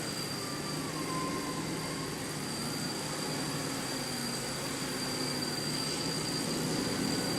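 Off-road vehicle engine running at fairly steady revs, its pitch drifting up and down a little, with a faint steady high whine over it.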